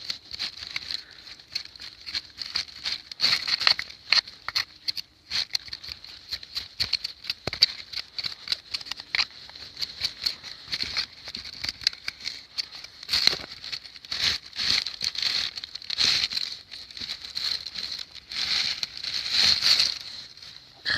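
Rapid, irregular scraping and scratching as caked sawdust and hardened bar oil are cleaned off a chainsaw, growing louder near the end.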